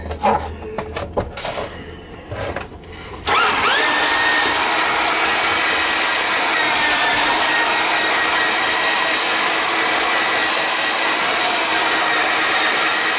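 Motor of a powered drain snake spinning up about three seconds in and running steadily with a whine, driving its cable into a kitchen sink drain line that is going hard with built-up muck. Before it starts, short knocks and clatter as the cable is handled.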